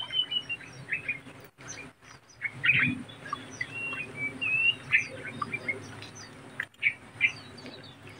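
Birds chirping: many short chirps with a few drawn-out whistles that rise and fall.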